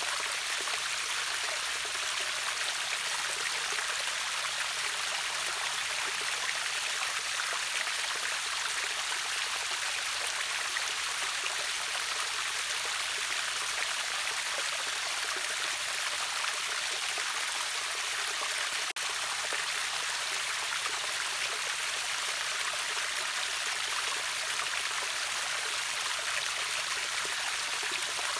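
River waterfall rushing steadily, an even hiss of falling and running water that is strongest in the higher range. A momentary dropout about two-thirds of the way through.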